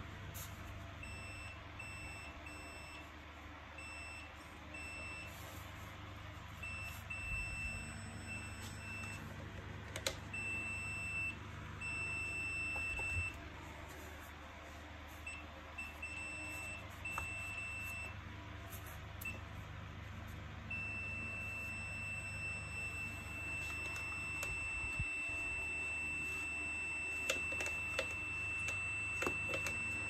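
A digital multimeter's continuity buzzer gives a steady high beep. It breaks up into short broken beeps for much of the time, then sounds continuously for the last several seconds, which signals that the circuit under the test leads is closed. There are a few sharp clicks from parts being handled.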